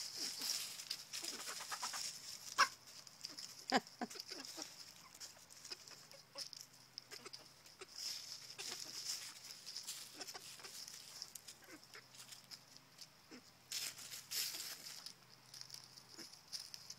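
Backyard hens clucking, a scatter of short calls with two louder ones a few seconds in, over a steady high-pitched hiss.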